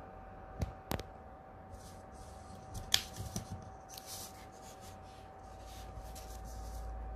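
A trading card in a clear plastic sleeve being picked up and handled: a few sharp clicks, the loudest about three seconds in, followed by soft plastic rustling and scraping.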